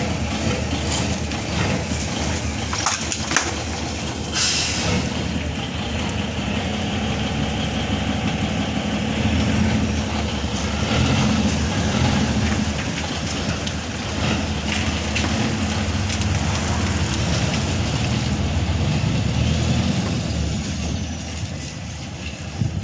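Mitsubishi Fuso Super Great's 6M70 straight-six diesel engine running steadily, on a truck being diagnosed for hard starting and low power. A short hiss about four seconds in.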